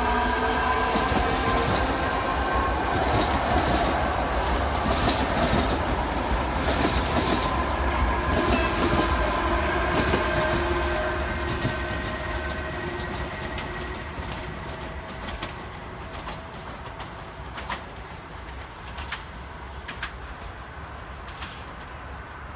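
Škoda double-deck electric multiple unit passing and pulling away: a whine of several steady tones that slide slightly lower, over the rumble of the wheels and clicks as they cross rail joints. It grows fainter from about halfway as the train recedes.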